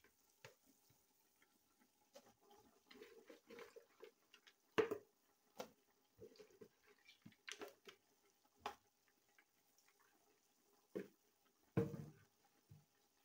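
Faint, irregular pops and crackles from meat cooking in a large pot on a stove, with a few louder clicks about five seconds in and near the end.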